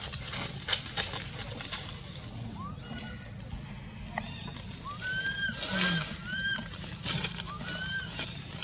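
Baby macaque crying: a series of short, high, arching cries, several in quick succession, as the hungry infant calls for milk. Dry leaves crackle and rustle under the monkeys.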